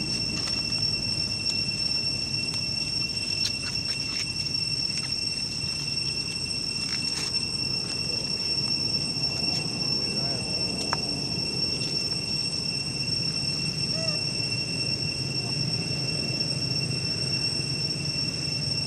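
Steady high-pitched insect drone, one unbroken even tone, with a few faint clicks in the first half.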